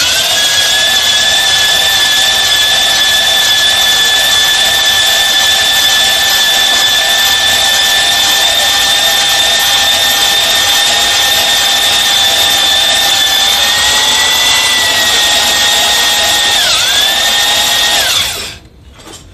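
Drill driving a cylinder hone in an engine block's cylinder sleeve, honing the bore: a steady motor whine that dips briefly in pitch near the end, then stops.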